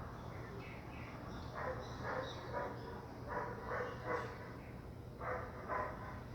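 A dog barking in short runs of two or three barks about half a second apart, with faint bird chirps above and a steady low background rumble.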